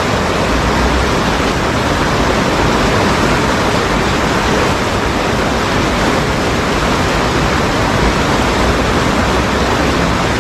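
Swift river water rushing over a low weir and around boulders: a steady, loud wash of whitewater with no breaks.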